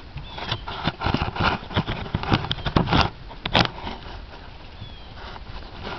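Hoofbeats of a bay Thoroughbred horse moving over grass: an irregular run of dull thuds mixed with rustling. Two sharp clicks stand out near the middle.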